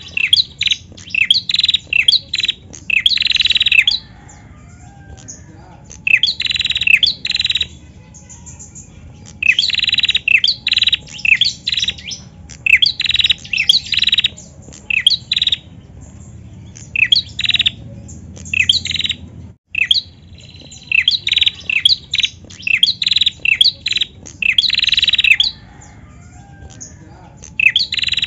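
A caged female prenjak singing in bursts of rapid, sharp, high chirps. Each burst runs one to three seconds, with short pauses between.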